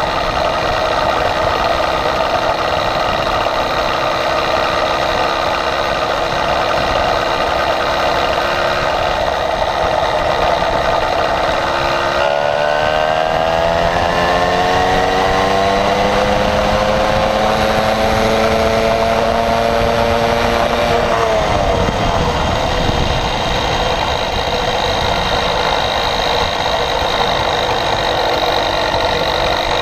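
Small motorized-bicycle engine running under way. Its pitch rises steadily from about twelve seconds in as it speeds up, then drops abruptly about nine seconds later as the throttle is eased.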